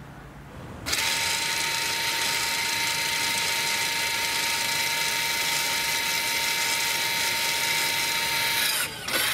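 Electric parking-brake actuator motor on a Toyota RAV4 rear brake caliper running with a steady whine. It starts about a second in, breaks off briefly near the end, then runs again. The motor is winding the parking brake back to its working position after the fully released service mode.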